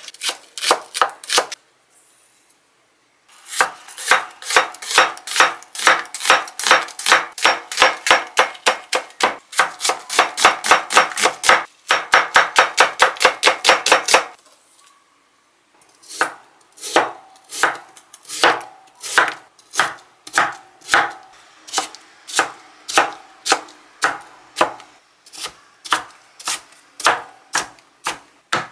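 Chef's knife chopping onion and then dicing potato on a cutting board: rapid, even knife strikes on the board, about four a second, with short pauses about two seconds in and again halfway through.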